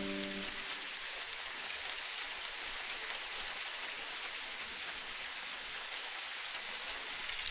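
Steady hiss of falling rain, even and unbroken. A held chord of tones, like a singing bowl, dies away about half a second in.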